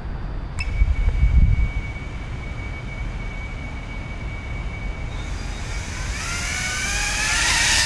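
FPV quadcopter's motors and propellers whining, a thin steady tone at first, then from about five seconds in a layered whine rising in pitch and growing louder as the throttle comes up.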